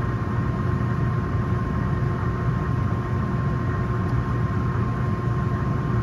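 Steady drone of a Lennox rooftop HVAC unit running with its blower on: an even low hum with a thin steady whine over it.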